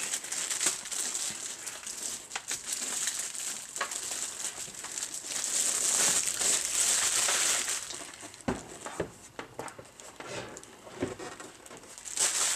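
Plastic packaging crinkling and rustling as it is handled, with many small clicks; it is loudest about six seconds in, then quieter with a few light knocks.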